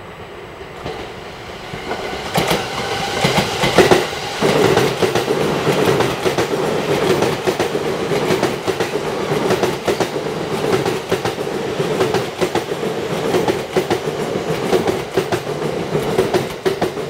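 A JR East E231 series electric commuter train arriving and running past along the platform as it slows, its wheels clacking over the rail joints. The noise builds about two seconds in, with a steady tone under the clatter.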